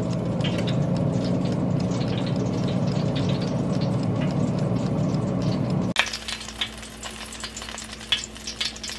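Pork belly fat sizzling and crackling inside a running air fryer oven, over a steady hum. About six seconds in the sound drops abruptly to a quieter crackle of hot fat.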